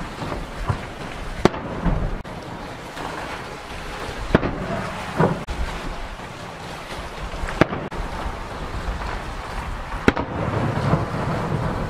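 Aerial firework shells bursting: four sharp bangs a few seconds apart, each followed by a low rumbling echo, with softer pops between.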